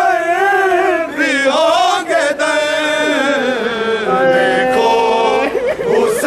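Men's voices chanting a noha, a Shia lament, in long held notes that waver and bend up and down, with more than one voice sounding at once.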